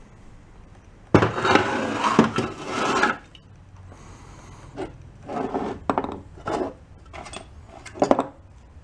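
Metal air-compressor parts (piston, connecting rod and rod cap) being handled and moved on a concrete floor. A rough scrape lasts about two seconds, starting about a second in, followed by a series of short clinks and scrapes.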